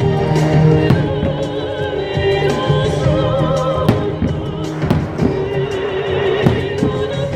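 Music with a singing voice held on wavering notes, over a fireworks display, with sharp firework bangs going off several times.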